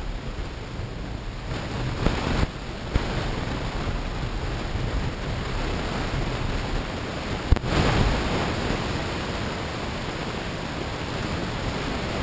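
Steady rushing road noise inside a moving car's cabin, with a few short knocks about two to three seconds in and a sharper one about halfway through.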